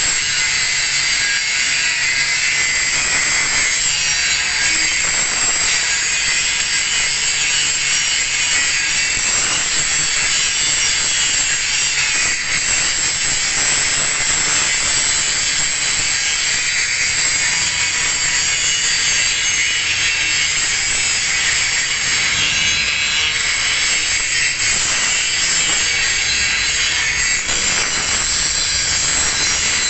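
Angle grinder grinding a single bevel into a steel plate edge: a steady, loud, high grinding noise throughout.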